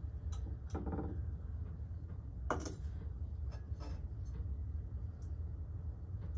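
Steady low hum with a few light clinks and knocks of a glass beaker against a conductivity tester's electrodes and the bench as it is raised and lowered. The clearest knock comes about two and a half seconds in.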